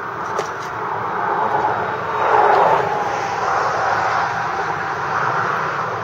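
Road traffic going by on the highway bridge: a steady rush of tyres and engines, with one vehicle swelling past and falling in pitch about two seconds in.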